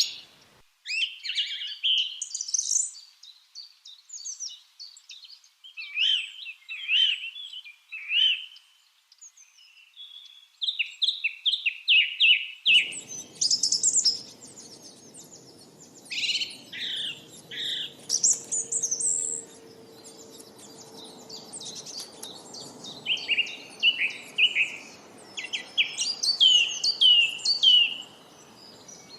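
Lovebirds chirping in quick series of short, sharp calls and falling notes. A low, steady background noise comes in suddenly about halfway through.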